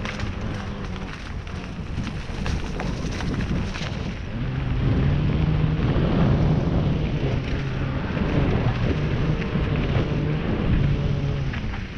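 Wind rush and trail noise on a GoPro's microphone during a fast trail descent: rattling and crackling at first, then a steady low buzzing hum joins from about four seconds in and fades near the end.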